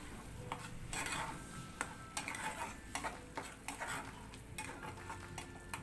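A spatula stirring and scraping thick tomato-onion masala around a metal kadhai as it fries, in repeated irregular strokes with sharp clicks where the spatula knocks the pan.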